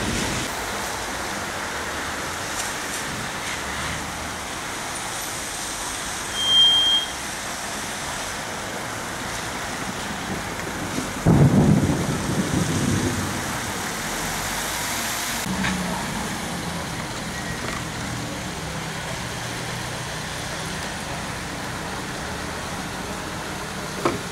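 Steady outdoor hiss of road traffic on a wet street, broken about eleven seconds in by a sudden low rumble that fades over a couple of seconds.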